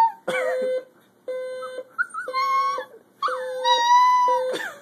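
Cocker spaniel puppy howling in long, wavering cries over an electronic alarm clock beeping about once a second, each beep about half a second long.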